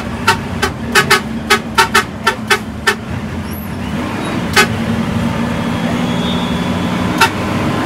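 Bus horn sounding in a rapid string of short toots, about three or four a second for the first three seconds, then two single toots later, over the steady drone of the bus's engine and road noise.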